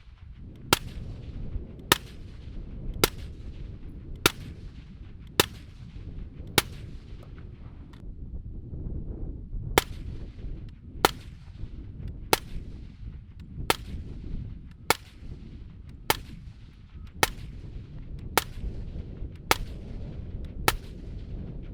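Suppressed 5.56 AR-pattern rifle with a 10.5-inch barrel and a Dead Air Nomad 30 suppressor firing steady single shots, about one every 1.2 seconds. There are sixteen sharp reports, with a pause of about three seconds after the sixth, over a steady low rumble.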